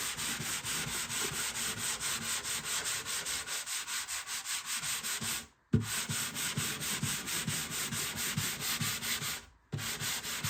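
220-grit sandpaper held under the bare hand rubbing lightly over a cedar guitar top, in quick, even back-and-forth strokes of about five a second. The sanding stops briefly twice, once about halfway and once near the end.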